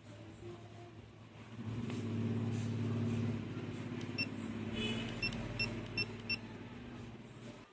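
GoPro Hero 4 Silver action camera giving a string of five short high beeps over a low steady hum, with a brief warbling chirp among the first beeps.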